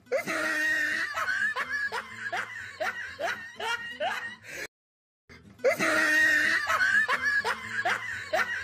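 Laughter: a run of quick, rising hee-hee snickers, about two or three a second. It breaks off in a short silence about halfway through, then starts again.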